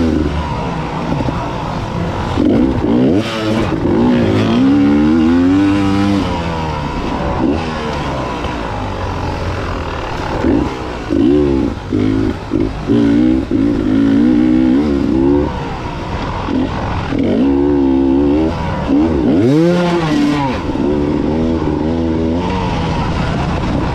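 Enduro motorcycle engines revving hard and backing off again and again, their pitch constantly rising and falling as the throttle is worked. About twenty seconds in, one engine gives a sharp rev up and down.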